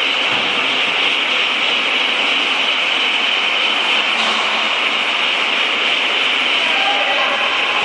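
Rail transfer cart's hydraulic system running steadily with an even hiss as its tilting table lowers.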